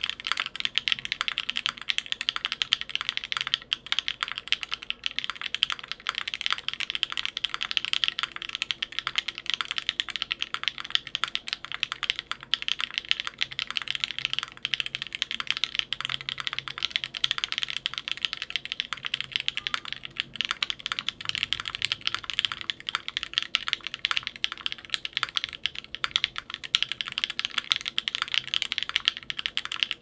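Continuous typing on a Nemui65 mechanical keyboard: Haimu x Geon HG Black linear switches, lubed with 205g0 and filmed, with 67 g springs, on a 1.5 mm aluminium plate with no foam, under ABS keycaps. A dense, even stream of keystrokes with no pauses.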